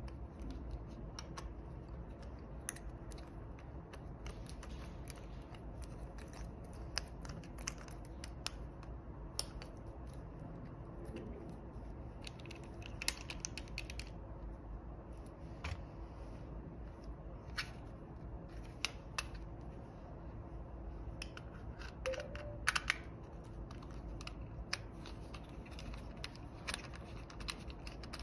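Small scattered clicks and taps of plastic and metal mount parts being handled and screwed together: a ball-head mount and a phone clamp being fitted. A low steady hum runs underneath.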